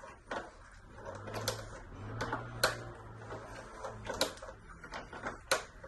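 Hand tap turned in a T-handle tap wrench, cutting a thread into the scooter's metal bracket: irregular sharp metal clicks and ticks, roughly one or two a second.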